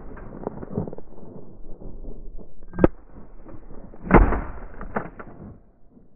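Several sharp bangs or knocks, one about every second, the loudest just past the middle, over a busy rustling crackle that dies away near the end.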